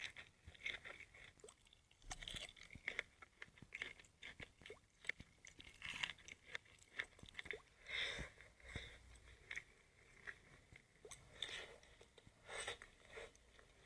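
Close-miked ASMR eating: food being chewed and crunched, with irregular crisp crunches and clicks and a few louder bites.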